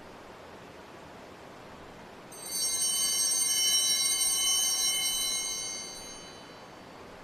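Altar bell rung at the elevation of the chalice after the consecration, a bright metallic ringing of several high tones that starts about two seconds in and fades away over about four seconds.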